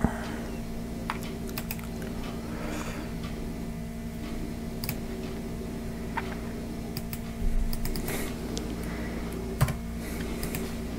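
Scattered clicks of a computer mouse and laptop keys being typed, over a steady low hum, with a brief louder rustle about seven and a half seconds in.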